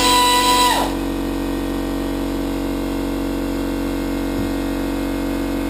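Steady mechanical drone made of several steady tones, with a higher whine that drops in pitch and fades about a second in.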